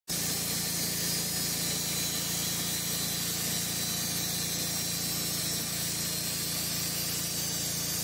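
Timber King bandsaw sawmill sawing a log cant: the mill's motor runs steadily under a constant high hiss from the blade and the sawdust it throws.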